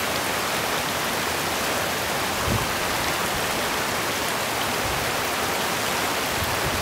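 Steady rushing of a small mountain stream's running water, with a couple of faint low thumps partway through.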